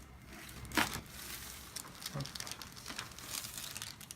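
A single sharp crack about a second in: a neck joint popping during a chiropractic neck adjustment. Light rustling and a few small clicks follow as the head and hands shift.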